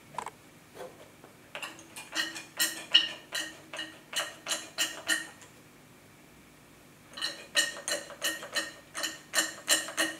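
Laboratory glassware clinking: a quick run of light clinks with a short glassy ring, a pause of about two seconds, then a second run.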